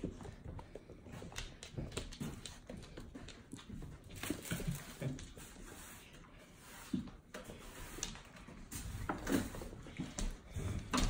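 A litter of puppies playing on a wooden floor: scattered light taps of paws and claws, scuffling and small knocks as they tussle.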